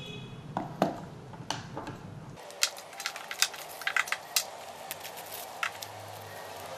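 Light clicks and taps of small drone accessories, cables and plastic packets being picked up and set down on a tabletop. The taps are sparse at first and come thick and fast from about two and a half seconds in.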